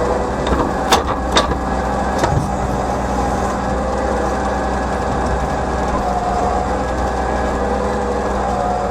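Tractor engine running steadily with a steady drone, with a few sharp knocks and clunks about one to two seconds in.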